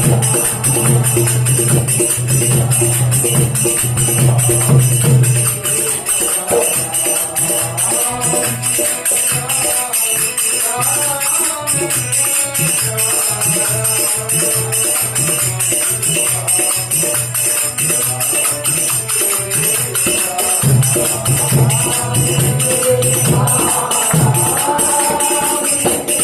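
Devotional kirtan music: a wavering melody line over a steady tambourine jingle and a pulsing drum beat.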